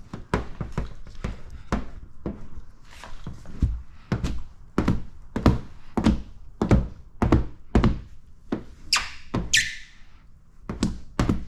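A run of dull thunks and taps, roughly two a second and uneven, with a short hiss about nine and a half seconds in.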